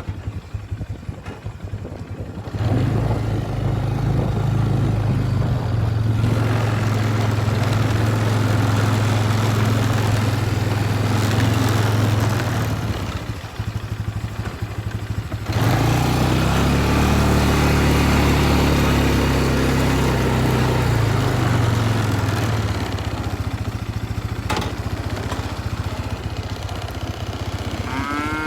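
A four-wheeler (ATV) engine running and being throttled while it is manoeuvred. It picks up about two and a half seconds in, eases off around thirteen seconds, picks up again around sixteen seconds and settles back to a lower run near twenty-two seconds.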